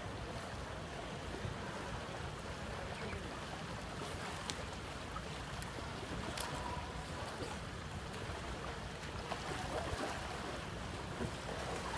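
Outdoor pool ambience: steady wind noise on the microphone with water lapping in the pool, and a few faint clicks.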